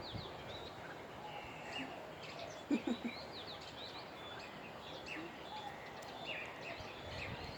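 Birds chirping and whistling: many short, quick calls, with a brief lower-pitched call about three seconds in.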